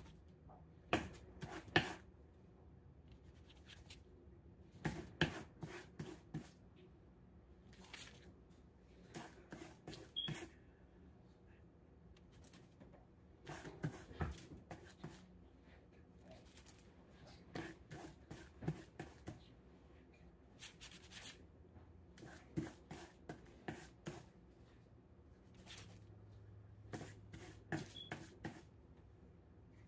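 Plastic donut cutter pressed again and again through soft dough onto a parchment-covered counter: clusters of light taps, clicks and paper rustles every few seconds.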